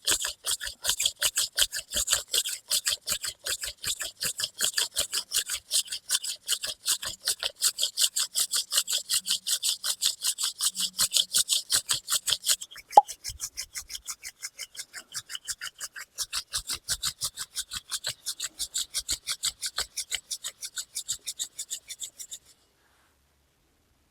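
Wooden hand drill spindle spun back and forth between the palms in a hearthboard socket for friction fire, a quick, even rhythm of rubbing scrapes as the wood is worked toward smoke. There is a sharp click about halfway through, after which the rubbing is softer; it stops a couple of seconds before the end.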